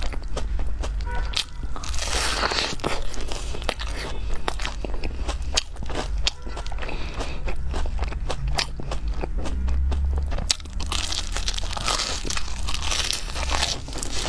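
Close-miked crunching and chewing as breaded fried rings are bitten, with sharp crisp crackles throughout and denser bursts of crunching about two seconds in and again a few seconds before the end.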